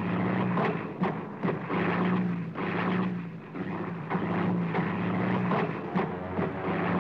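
Single-engine light propeller aircraft, an RAF de Havilland Chipmunk-type trainer, with its engine running in flight. A rough, noisy drone with a low hum is cut by irregular sharp cracks.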